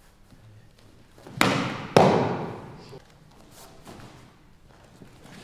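Two loud thuds about half a second apart, each with a short echo: a body and arm slapping the mat in an aikido breakfall as the partner is thrown.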